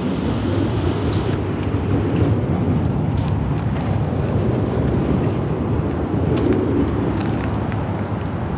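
Steady low rumble with scattered light clicks and taps.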